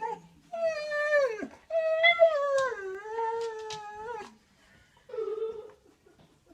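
Siberian husky howling in drawn-out calls: a call about a second long that falls in pitch, then a longer one that slides down and holds, then a short lower call near the end.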